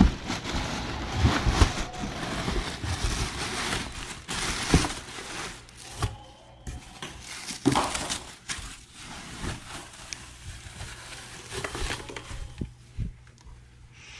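Plastic wrapping and foam packing crinkling and rustling as they are pulled out of a cardboard box around a wheel, with scattered knocks and scrapes against the box. Busiest in the first half, quieter after about six seconds.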